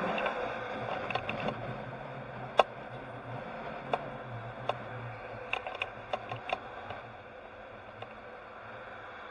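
Driving noise from a tow truck on the road, a steady rush of wind and road noise over a low engine hum, with scattered sharp clicks and rattles, several between about four and seven seconds in. The rush gets quieter after about seven seconds.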